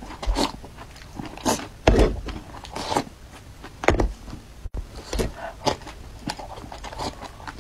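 Close-up eating sounds: slurping from a bowl and wet chewing, in irregular short smacks and sips.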